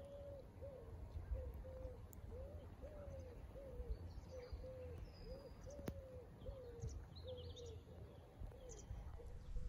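A bird calling a steady run of short, soft hooting notes, about two a second, with a few faint high chirps.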